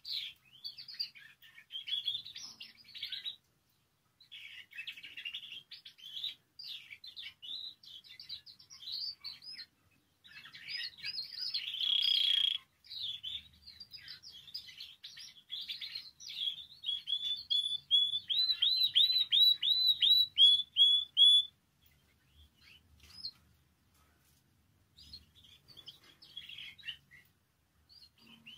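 Spanish Timbrado canary singing in varied phrases of trills and chirps. Past the middle comes a long run of repeated rising notes, then a short pause before softer song near the end.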